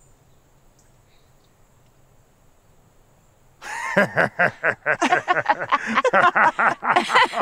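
A faint, quiet pause, then about three and a half seconds in, people break into loud laughter: a quick, rhythmic run of ha-ha pulses that carries on to the end.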